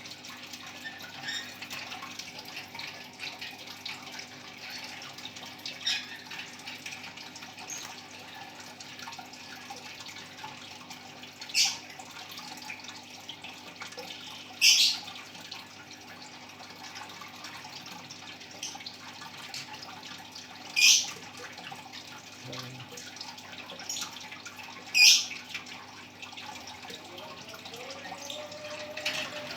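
A pet bird giving short, sharp high-pitched calls, four clear ones several seconds apart, over a steady background hiss.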